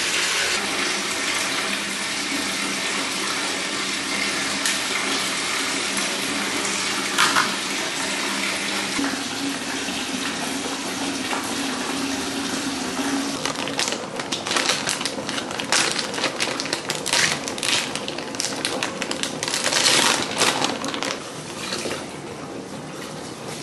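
Bathtub tap running, filling the tub with hot water in a steady rush. From a little past halfway there is also a run of crackling and rustling as a plastic bag of Epsom salt is handled and opened.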